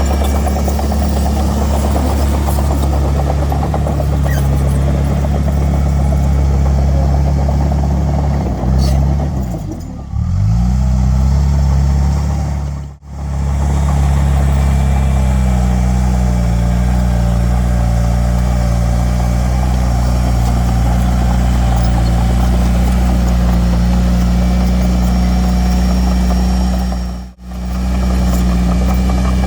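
Heavy diesel engine of earth-moving equipment running steadily, its pitch dipping and recovering briefly about a third of the way in as it takes load. The sound cuts out for a moment twice.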